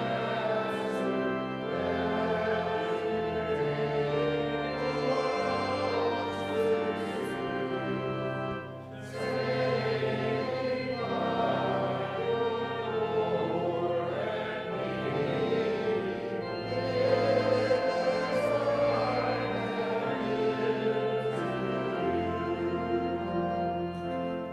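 Voices singing a hymn together over held organ chords, with a short break between phrases about eight seconds in; the music fades near the end.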